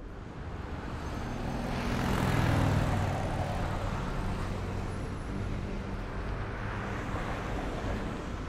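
Street traffic: a motor vehicle's engine passes close by, growing to its loudest about two and a half seconds in, then easing back into steady traffic noise.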